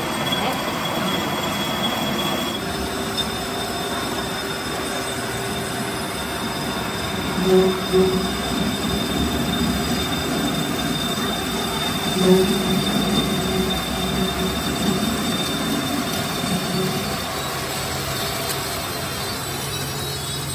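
Metal lathe running, turning a steel truck axle spindle in its chuck, with a steady high-pitched squeal over the machine's noise. Brief louder surges come about 7.5, 8 and 12 seconds in.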